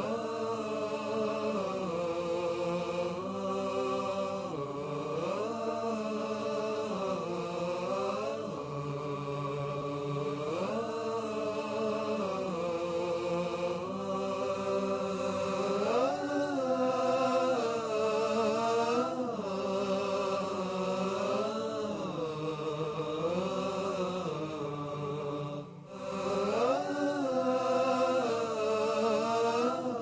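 Opening theme of voices chanting, holding long notes that swell and glide up and down, with a brief break near the end.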